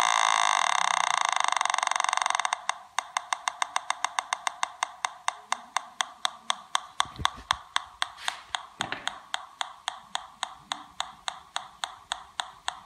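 Homemade PI Polones pulse induction metal detector sounding through its speaker: a steady buzzing tone that about two and a half seconds in breaks into an even ticking of about six clicks a second, with a couple of soft handling thumps. This is with an NE5534 op-amp fitted, which the builder finds does not work.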